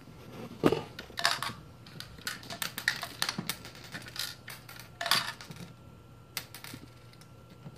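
Small plastic toy coins clicking and clattering as they are dropped one at a time into a plastic toy counter. There are a dozen or so sharp clicks, most in the first five seconds and fewer near the end.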